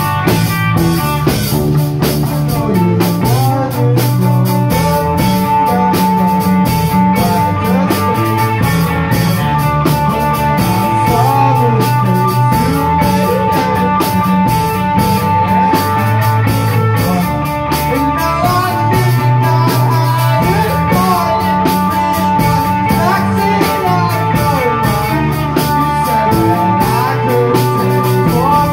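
Rock band playing live and loud: Telecaster-style electric guitar, electric bass and drum kit, with a steady high note held through most of it.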